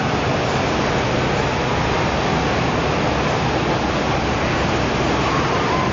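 Steady, even rushing noise with no breaks, like running water or wind on the microphone.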